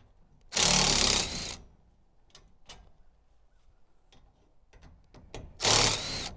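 Two loud rasping, scraping noises, each about a second long and roughly five seconds apart, with a few light clicks in between.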